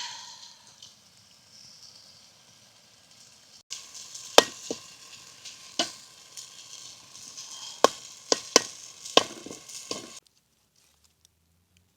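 Food frying and sizzling in a pan, with sharp clicks and knocks of a utensil stirring against the pan. The sizzle gets louder about four seconds in, and everything stops abruptly near the end.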